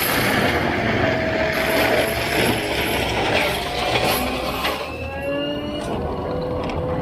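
Takeuchi TL12 compact track loader running and working, with rattling and clanking from the machine and a whine that rises and falls in pitch.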